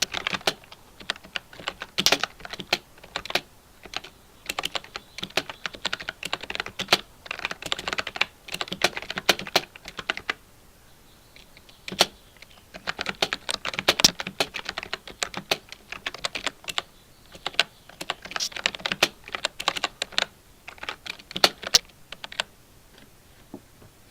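Typing on a 1STPLAYER Fire Dancing GK3 mechanical keyboard with POM switches: quick runs of keystrokes in bursts, with a pause of about a second and a half near the middle and a quieter spell near the end.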